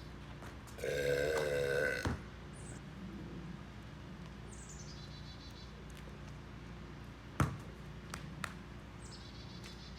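A man's loud burp lasting over a second, its pitch wavering. Several seconds later comes a single sharp knock.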